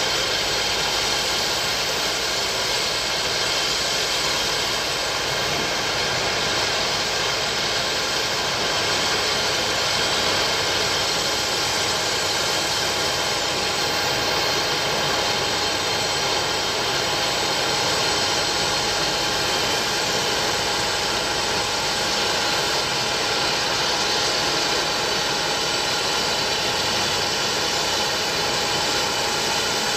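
Steady whine and rush of jet airliners idling on an airport apron, with several steady tones held over an even hiss.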